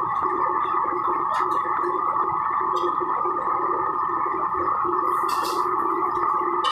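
Commercial gas wok burner roaring steadily at high flame, with scattered light metal clinks of utensils against woks and pots.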